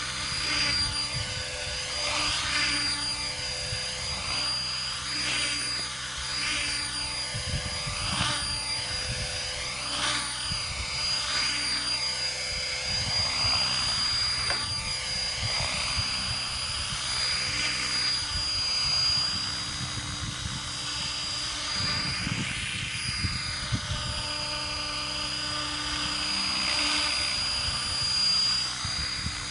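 Mikado LOGO 500 3D electric RC model helicopter hovering low, its rotor whirring under a steady high-pitched motor whine. The rotor sound swells and fades in sweeps as the helicopter shifts about.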